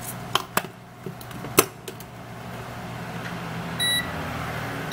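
A few sharp clicks of tools being handled, then near the end a short high beep from a digital multimeter's continuity tester as its probes touch the battery pins of a Samsung Galaxy S4 mini logic board. The beep means continuity: the short to ground between the battery pins is still there.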